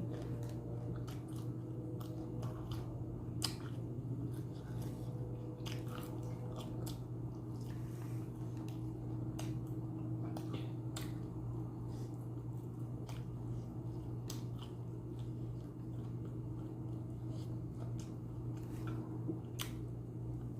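A person chewing and biting food close to the microphone, with scattered short crisp crunches, over a steady low hum.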